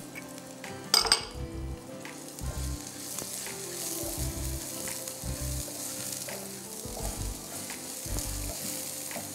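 Chopped onions and mustard seeds sizzling in hot olive oil in a nonstick frying pan, stirred with a silicone spatula. A sharp clack about a second in.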